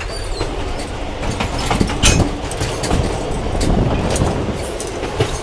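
Vintage wooden railway carriage running along the track: a steady rumble with the wheels clacking over the rail joints, and a louder clack about two seconds in.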